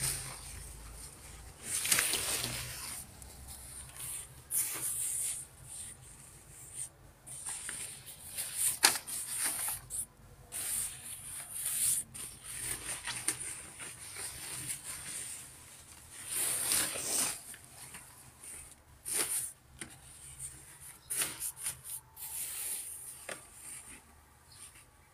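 Shiny thin nylon shell of an ultra-thin duck-down puffer jacket rustling and swishing as it is handled, in irregular swishes, some louder than others.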